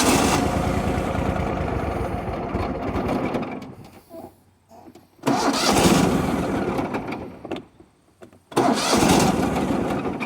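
Lawn tractor's gas engine turned over by its starter in three long cranking bursts without catching. It will not start after running dry, which the owner takes for vapor lock at the engine's fuel pump.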